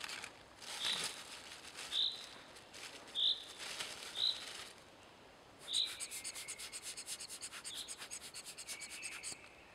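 Plastic bag rustling and crinkling as it is handled, while a bird repeats a short high call about once a second. From about six seconds in, a rapid even run of ticks, about six a second, with a steady high whistle under it.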